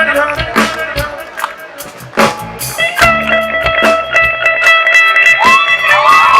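Live band music led by a plucked string instrument playing a solo phrase over percussion hits. Quick picked notes give way about halfway to a long held note, and the notes bend upward near the end.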